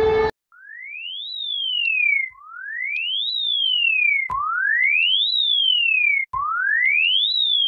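Synthesized alarm siren tone: a single pure whistle-like tone that sweeps quickly up in pitch, then slides back down part way. It repeats about every two seconds, four times, starting about half a second in after music cuts off.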